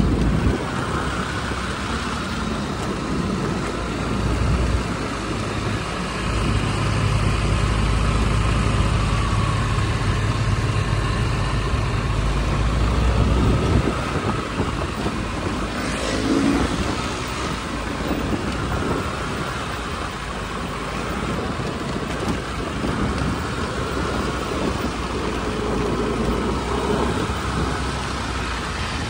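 Road and traffic noise from moving motor vehicles on a paved street, with a heavy low rumble for several seconds in the middle.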